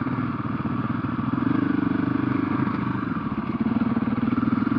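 Husqvarna FE501's single-cylinder four-stroke engine running steadily as the dirt bike is ridden, growing a little louder about a second and a half in and again near the end.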